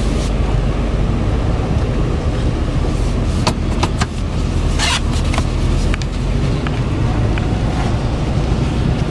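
Cummins turbo diesel running at idle, heard inside the truck's cab as a steady low drone. Several sharp clicks and a brief rustle come in the middle.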